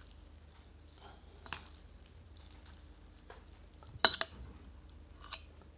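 Eating utensils clinking against a bowl while stirring noodle soup: a few short sharp clinks, the loudest pair about four seconds in.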